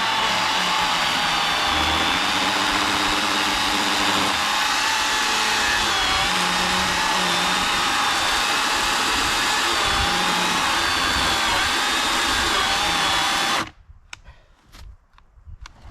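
Milwaukee M18 Fuel cordless chainsaw running under load as it cuts through a thick log, a steady motor-and-chain whine. Near the end it cuts out suddenly because the 5.0 Ah battery has overheated and shut down, followed by a few faint clicks.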